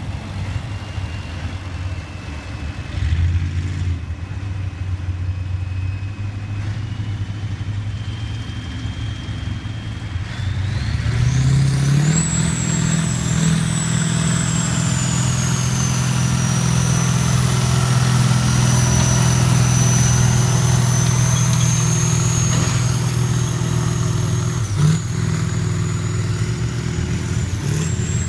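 Competition pulling tractor's engine ticking over, then revving hard about eleven seconds in and holding a loud, steady full-power run, with a high whine that climbs with the revs and then holds steady.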